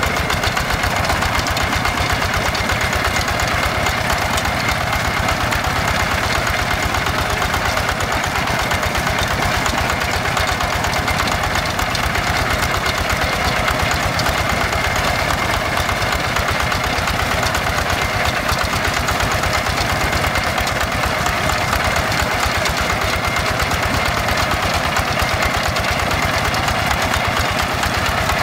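Single-cylinder Yanmar diesel engine of a Quick G1000 two-wheel hand tractor running steadily with a rapid, even firing beat, under load as it drags a leveling board through paddy mud.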